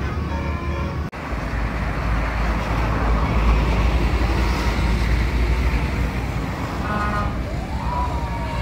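Large bus's engine running with a heavy low rumble amid road noise, the sound dropping out for an instant about a second in.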